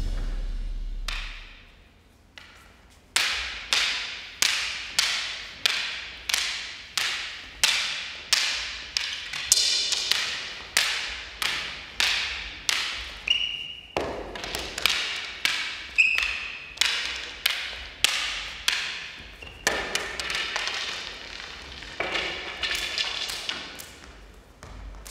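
Arnis sticks of rattan clacking against each other in a fast, regular rhythm of about two strikes a second, each one ringing out in an echoing hall. Near the end the strikes come quicker and fainter.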